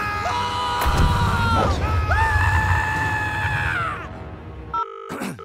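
Background music with two long screams over it, each held and then falling in pitch. Brief electronic beeping tones sound near the end before the audio cuts off.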